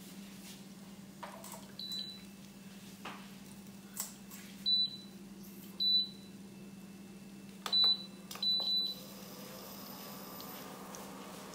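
A kitchen appliance's electronic panel beeps about six times. There is one short, high beep about two seconds in, and the rest come between about five and nine seconds. Soft clicks fall between the beeps, over a steady low hum.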